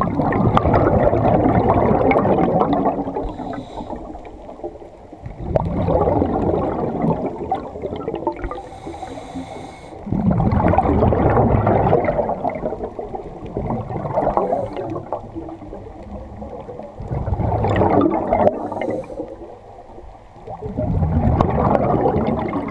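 A scuba diver breathing through a regulator underwater: about five long rushes of exhaled bubbles, each two to three seconds, with a short high hiss of inhalation between some of them.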